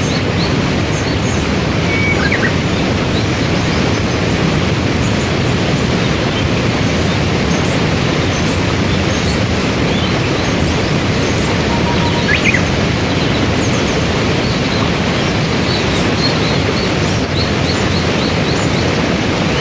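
Waterfall and rapids rushing steadily, with small birds chirping faintly now and then over the water.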